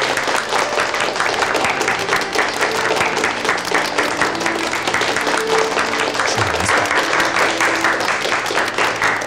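A room of people clapping steadily, with background music holding sustained notes underneath.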